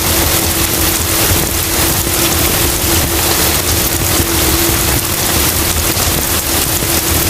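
Heavy rain falling steadily, a dense hiss of many drops, with a steady low hum underneath.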